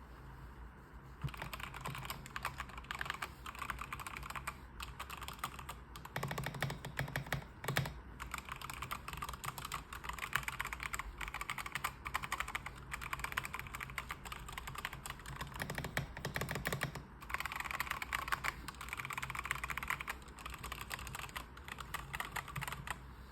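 E-yooso Z94 mechanical keyboard being typed on in fast, continuous runs of key clicks, starting about a second in, with heavier stretches of keystrokes twice along the way.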